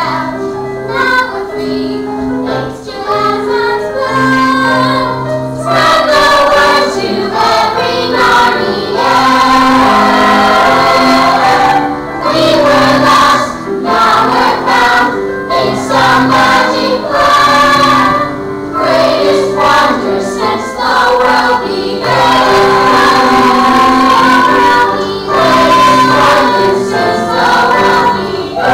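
A chorus of young voices singing together over instrumental accompaniment, growing louder about six seconds in.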